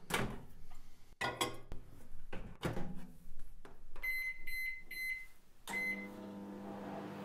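Countertop microwave oven: knocks and clatter as the door is worked and the dish of soft plastic is put in, then four short keypad beeps, then the oven starts running with a steady hum, heating the soft plastic.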